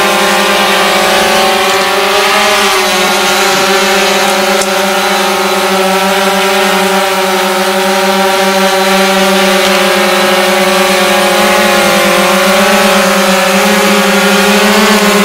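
Quadcopter drone hovering, its propellers giving a steady buzzing hum whose pitch wavers slightly.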